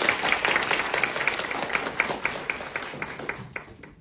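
A small audience applauding. The clapping thins out to scattered single claps and dies away near the end.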